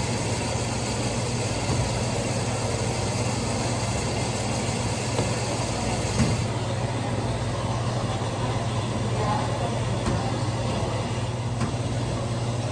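Steady low hum of laundromat washers and dryers running.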